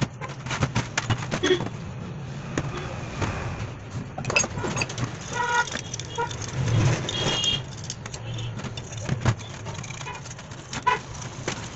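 Metal starter-motor parts clinking and knocking against each other and the workbench as they are handled and cleaned, in irregular sharp clicks, over a steady low hum.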